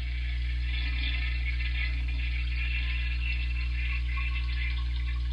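Recorded toilet flush sound effect played back by the sketch: water rushing and draining steadily over a strong low hum.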